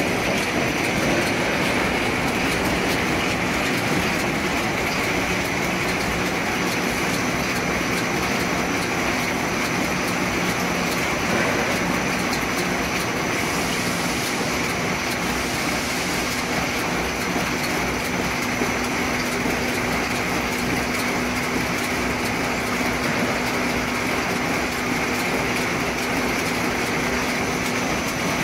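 Stainless steel roller grading machine running, its rollers turning under a load of small tomatoes that it sorts by size. A steady, even mechanical noise with a low hum and a faint high whine.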